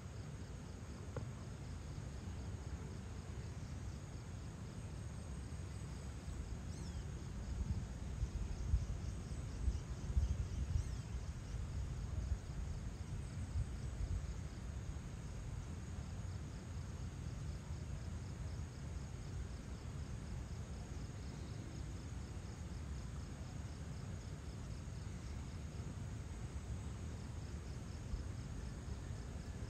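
Insects chirping in a steady, high, pulsing trill, over a low rumble that swells between about 8 and 14 seconds in.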